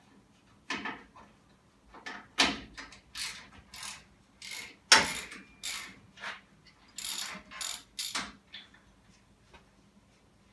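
Hand ratchet wrench with a Torx socket clicking in a dozen or so short spells while a bumper bolt is loosened, then stopping about two seconds before the end.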